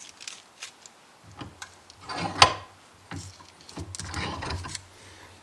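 Scattered clicks and knocks of a glued wood pen blank being set and handled in a bench vise, with one sharper knock about two and a half seconds in.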